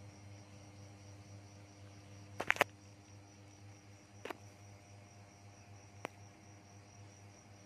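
Low steady electrical hum, broken by three sharp clicks in quick succession about two and a half seconds in and single clicks at about four and six seconds.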